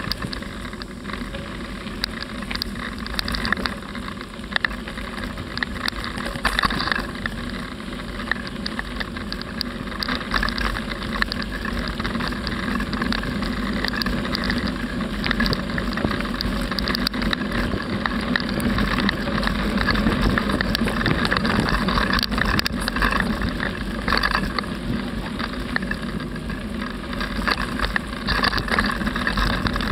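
Riding noise on a moving bicycle: wind rushing over the microphone and the bike rattling as it rolls, with many small knocks and clicks, a little louder from about halfway.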